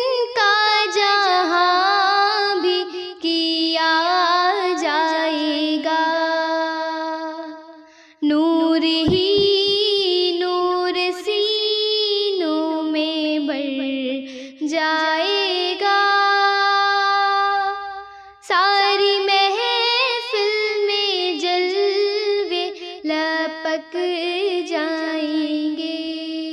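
A young girl singing a naat, an Urdu devotional song in praise of the Prophet, in long phrases of held, gliding notes broken by short pauses.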